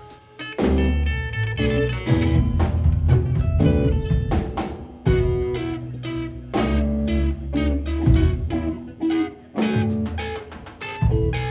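Rock band playing live: electric guitars and a drum kit, with keyboard on stage. The sound drops off briefly at the start, then the full band comes back in about half a second in and plays on.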